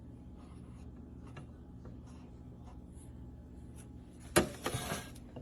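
Low steady hum with a few faint light taps, then a loud scraping rustle a little over four seconds in, as the welder and its accessories are handled.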